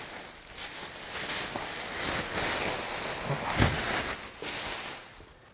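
Clear plastic wrap crinkling and rustling as it is pulled up and off an office chair, with one sharp click about three and a half seconds in; the rustling dies away near the end.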